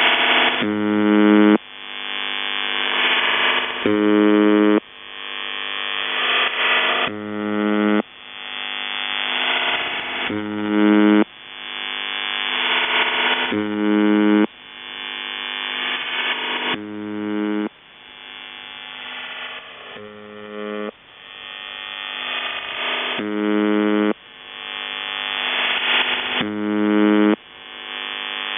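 The UVB-76 'Buzzer' shortwave channel marker heard through a receiver: a buzz of about a second repeats roughly every three seconds. Between buzzes, the idle audio of a CIS-12 modem leaks in as a dense hiss of data tones, growing louder until the next buzz as the audio compression recovers.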